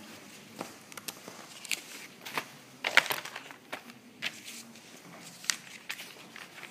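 Irregular clicks, taps and rustles of objects being handled, with a sharp knock about three seconds in.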